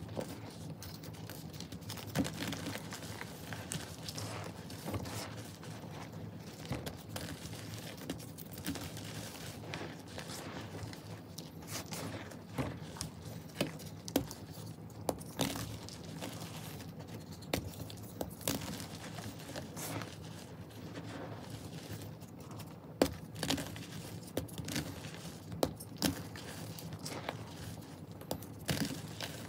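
Hands crushing and crumbling dry, dusty powder blocks: a continuous soft crunching and crumbling, with sharper cracks scattered irregularly throughout.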